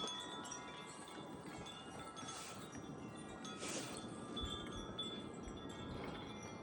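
Wind chime ringing continuously in strong gusting wind, many overlapping tones sounding together, with a couple of brief rushes of wind a couple of seconds in and again near four seconds.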